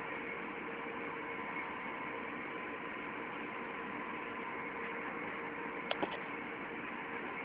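Steady industrial machinery noise with a constant hum of several tones, and two sharp clicks about six seconds in.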